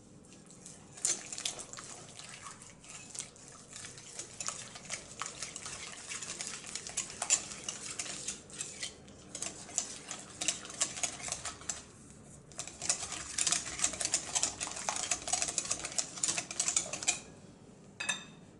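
Hand stirring or whisking in a mixing bowl, the utensil clicking and scraping rapidly and irregularly against the bowl. It pauses briefly about twelve seconds in and stops near the end.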